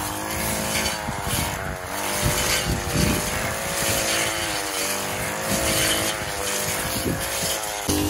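Petrol brush cutter running at working speed as it cuts grass. The engine note wavers slightly up and down as the line meets the grass.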